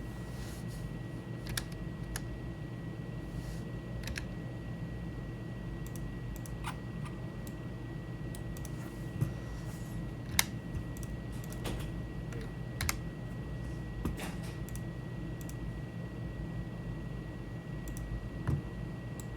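Computer keyboard keys and mouse clicks, sparse and irregular, a few sharper than the rest, over a steady low hum.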